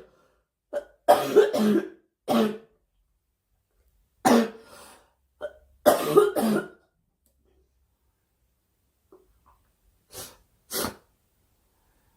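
A girl coughing in short fits: a run of coughs about a second in, another run from about four to seven seconds, and two softer single coughs near the end.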